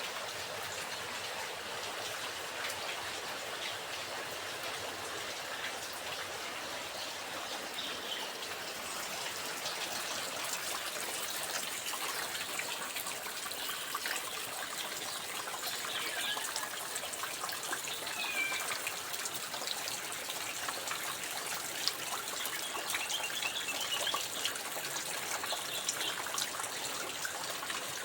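Steady rain falling, with pattering drops and water trickling and dribbling as it runs off.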